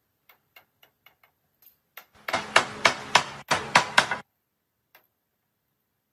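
Hammer striking a joint of a wooden sofa frame to drive the rail home. A few light taps come first, then a run of harder blows about three a second, then one last light tap.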